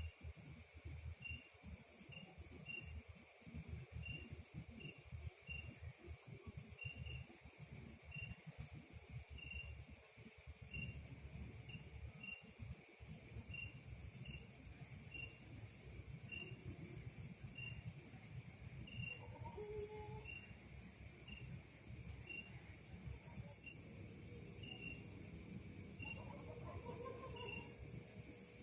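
Crickets and other insects chirping faintly. A regular chirp repeats about one and a half times a second over a steady high drone, with short trills every few seconds.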